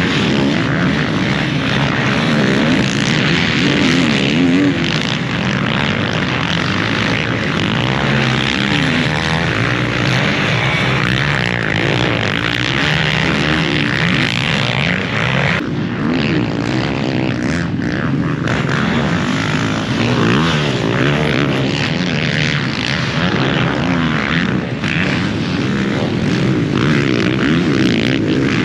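Motocross bike engine revving hard on the track, its pitch rising and falling as the throttle opens and closes and the gears change.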